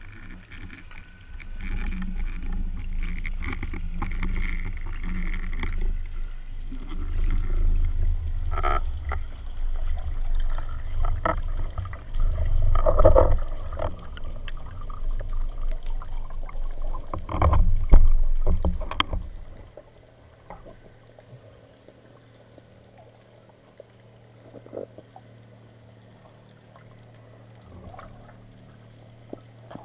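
Underwater rumble of water rushing over a speargun-mounted camera as a freediver swims up from depth, with a few knocks and gurgling bubble sounds. About two-thirds of the way through the rumble drops away to a faint, quiet background.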